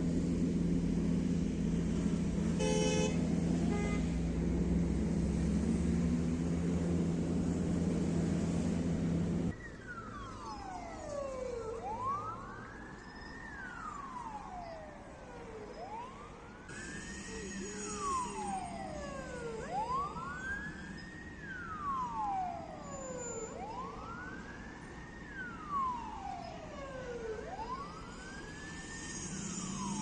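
Ford Transit ambulance siren on wail, sweeping up and down about once every two seconds. For the first third it is covered by a loud, steady low rumble of engines and traffic.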